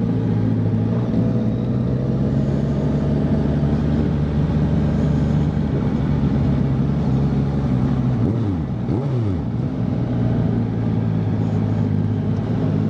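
Honda CBR650F inline-four motorcycle engine running at steady revs while riding, with wind rush over it. About eight seconds in, the engine note dips and climbs back twice in quick succession.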